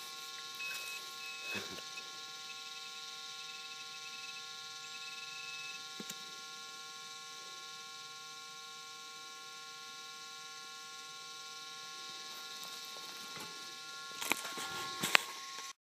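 Minelab CTX 3030 metal detector giving a steady electronic hum made of several held tones. A few scrapes and knocks of hands digging and handling a find come through about a second and a half in and about six seconds in, and louder, near the end.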